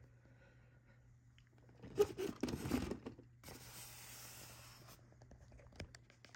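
Handling noise close to the microphone: a knock about two seconds in, a second of rustling, then a steady scraping hiss for about a second and a half that stops abruptly.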